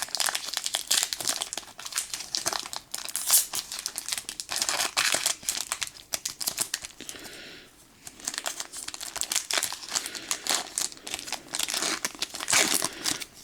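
Foil wrapper of a Pokémon trading-card booster pack crinkling as it is torn open and handled: a dense run of crackles, with a brief lull about seven seconds in.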